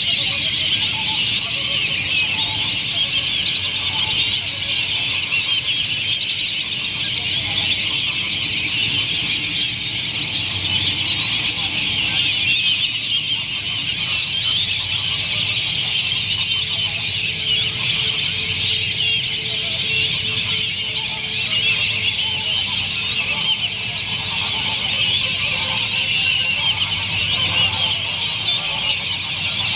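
A large flock of ducks on a pond calling all together: a dense, unbroken chorus of high-pitched calls.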